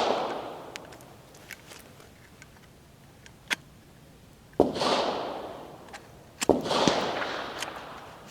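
Shotgun shells being worked into the magazine of a PW87 lever-action 12-gauge: a few sharp metallic clicks, the last two each followed by a rush of rustling handling noise that fades over about a second.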